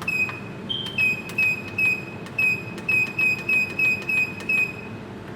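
Keys on an addressable fire alarm control panel's keypad being pressed: each press gives a click and a short high beep, about a dozen at uneven intervals, one beep a little higher in pitch than the rest. A steady low hum runs underneath.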